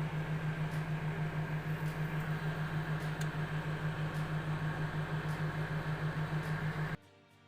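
Microwave oven running: a steady low hum that pulses about six times a second, with fan noise over it. It cuts off suddenly near the end.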